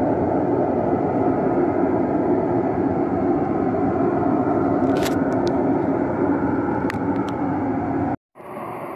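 Very loud, steady droning noise from the night sky, of the unexplained kind called a 'cielomoto' or skyquake. A few light clicks come about five and seven seconds in, and the drone cuts off abruptly just past eight seconds, giving way to a quieter hiss.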